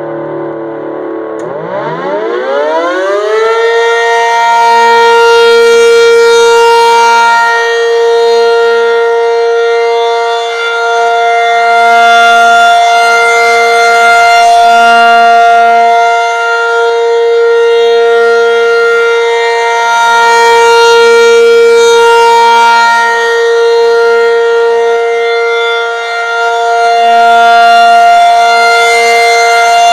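A Federal Signal 500-DH-TT dual-tone outdoor warning siren winds up from a low pitch about a second and a half in and reaches its full steady two-tone wail within a couple of seconds. It then holds the steady alert signal, getting louder and softer every few seconds as the rotating head sweeps past.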